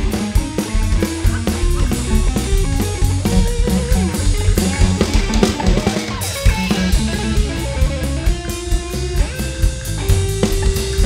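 Band music: a drum kit keeping a steady beat under bass and guitar.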